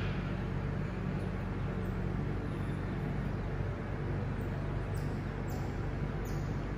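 A steady low mechanical hum, with a few faint, short high chirps that fall in pitch in the last few seconds.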